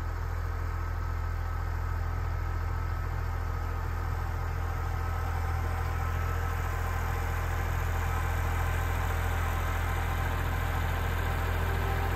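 Kubota L3901 compact tractor's three-cylinder diesel engine running steadily as the tractor drives closer, growing gradually louder.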